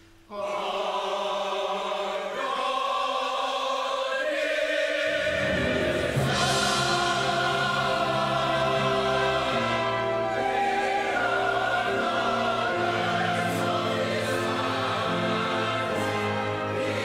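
Church choir singing with orchestral accompaniment. The music enters suddenly just after a brief pause, at first without a bass line, and the low voices and bass come in about five seconds in.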